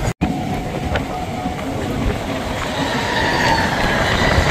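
Mumbai suburban local train running, heard from its open doorway: a steady rumble of wheels on the rails. About halfway in, a high wheel squeal joins it and slowly falls in pitch. The sound cuts out for an instant just after the start.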